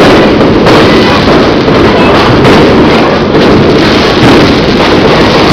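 A fireworks display: a loud, dense, continuous rumble and crackle of exploding shells, with a few sharper cracks standing out.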